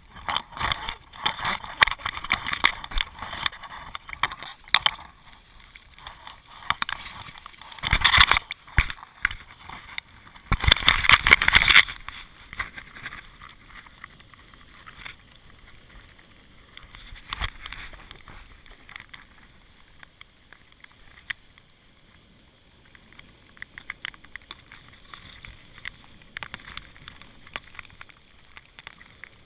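Snow tube sliding over packed snow: a rough scraping and rattling with many small knocks, with two louder rushes about eight and eleven seconds in, then quieter.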